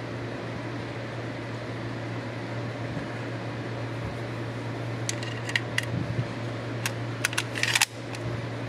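A few light metallic clicks and taps from handling the Luger P08 pistol and its aluminium-bottomed magazine, clustered from about five to eight seconds in, over a steady low room hum like a fan.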